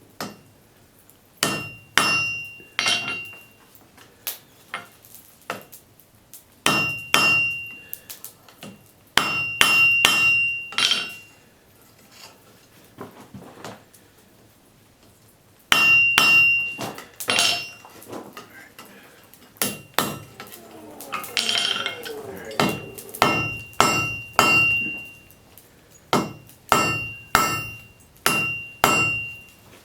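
Hand hammer forging hot high-carbon steel on an anvil: bursts of several sharp blows with pauses between them, the anvil ringing after each strike. About twenty-one seconds in there is a short rougher noise between the blows.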